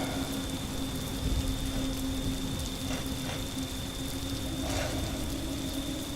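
Steady rain ambience with a constant low hum and a thin high tone running under it, and a couple of faint short sounds about three seconds in and near the end.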